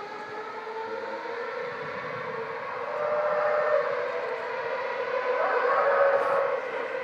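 2012 Formula One car's 2.4-litre V8 engine heard from a distance, its high pitch rising and falling with acceleration and gear changes, growing louder about three seconds in and again near six seconds.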